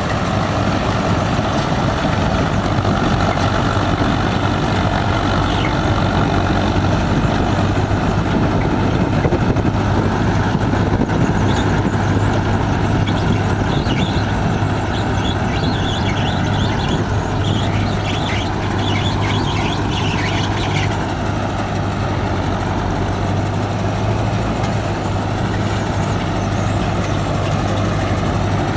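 Yanmar Arjun YH 700 combine harvester running steadily, its engine giving a low, even hum under the clatter of the machinery. Light rattling comes in midway through and fades again.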